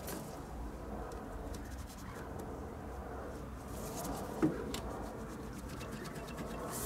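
A gloved hand working an accelerator-cable grommet into its hole in a car's bulkhead: faint rustling and scraping, with one sharp knock about four and a half seconds in.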